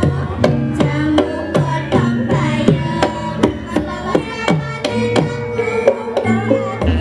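Javanese gamelan ensemble playing. Quick hand-drum strokes, falling in pitch, sound several times a second over dense ringing metallophone notes and low sustained gong tones.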